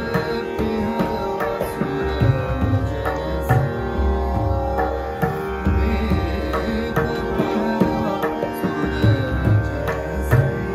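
Harmonium playing Hindustani classical accompaniment, its reeds sounding held, steady tones, with a regular beat of low drum strokes, some of them gliding in pitch, beneath.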